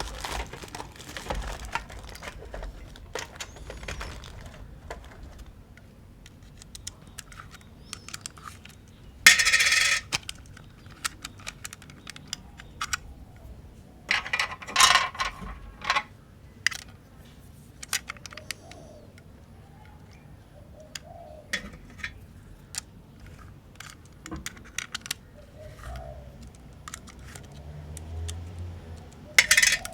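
Clicks, clinks and scrapes of small metal parts as a battery is fitted into a Canon F-1 film camera's battery compartment. Two louder rattling scrapes come about nine and fourteen seconds in.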